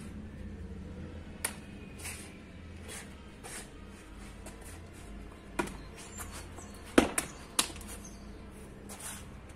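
Sharp slaps and snaps of a martial arts form being performed: strikes, uniform fabric and footwork, scattered through, with the loudest three in quick succession about seven seconds in. A low steady hum runs underneath.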